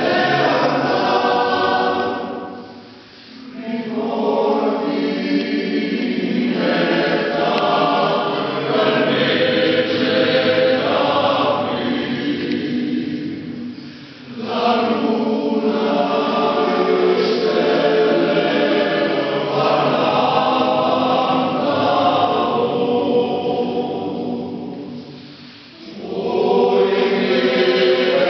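Male choir singing in a church, in long phrases broken by three brief pauses.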